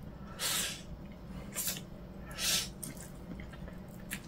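Noodles being slurped in through the lips: three wet slurps, the first and last longer, the last the loudest.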